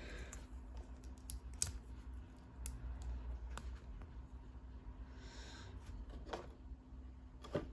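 LEGO pieces being handled and pressed together: scattered sharp plastic clicks, a few seconds apart, with a short rustle about five seconds in.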